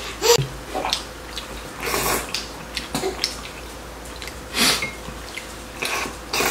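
Close-up eating sounds: wet slurping of noodles and sauce from a bowl and chewing of braised chicken, in short irregular bursts with brief pauses between.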